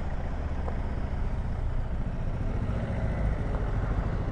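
Motorcycle engine idling steadily close by, a low pulsing rumble, with street traffic around it.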